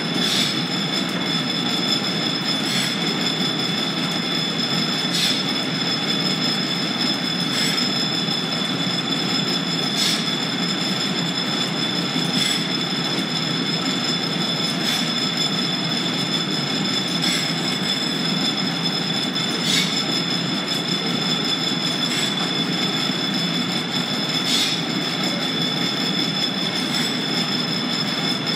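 Overhead line-shaft belt drive running: ceiling shafts turning flat belts over pulleys with a steady mechanical rumble and a high, steady whine, and a short click about every two and a half seconds.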